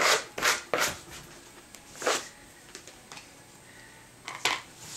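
A plastic scraper rasping across silk wet with methyl cellulose paste on binder's board, working the paste into the weave: three quick strokes in the first second, another about two seconds in, and a short scuff near the end.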